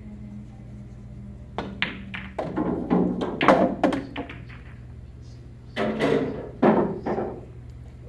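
A pool shot: a sharp click about one and a half seconds in as the cue strikes the cue ball, followed by a quick run of clacks and knocks as the balls hit each other and the cushions. A second cluster of knocks comes about six to seven seconds in, over a steady low hum.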